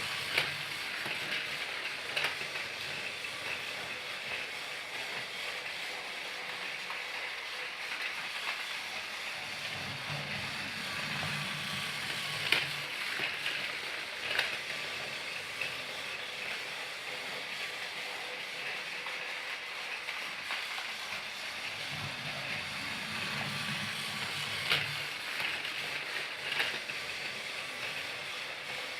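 Battery-powered Thomas the Tank Engine toy train running, with a steady whirring hiss. A low rumble swells about every twelve seconds, and sharp clicks come in pairs about two seconds apart on the same cycle.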